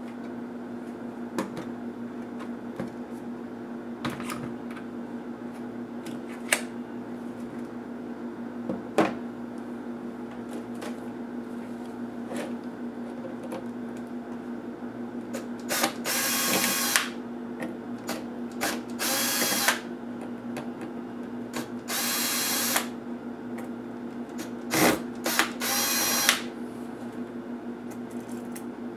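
Small electric screwdriver running in four short bursts of about a second each, backing out the screws that hold a laptop's CPU heatsink to the motherboard. Light clicks of small parts being handled come earlier, over a steady low hum.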